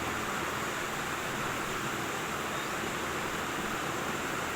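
Milk tea with cardamom, cinnamon and cloves boiling in a pan on the stove: a steady, even hiss.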